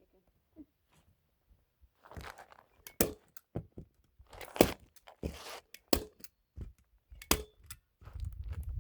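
Synthetic roofing underlayment rustling and crinkling as it is handled, with four sharp knocks about a second and a half apart, starting about three seconds in. A low rumble comes in near the end.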